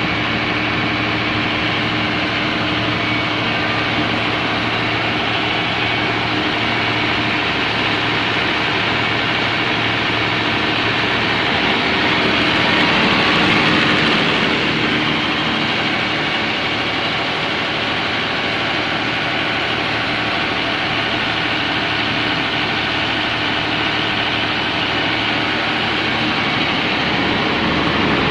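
Komatsu SA6D110 six-cylinder diesel engine of an open-frame 130 kVA generator set running steadily, with a slight swell in loudness about halfway through.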